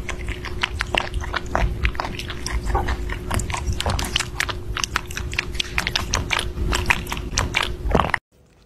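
Rabbit biting and chewing strawberries: a quick, uneven run of small wet crunches and clicks, several a second, that cuts off suddenly near the end.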